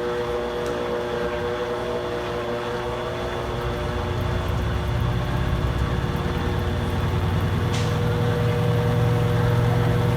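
Electrolux Essential Care LES11 washing machine speeding up in its spin cycle: the motor hums with steady tones, and a low drum rumble grows stronger from about four seconds in as the spin gathers speed.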